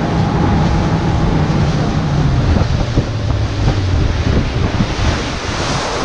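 A fishing boat's engine running at speed, its note dropping a little about halfway through, under heavy wind buffeting on the microphone and the rush and splash of water off the hull.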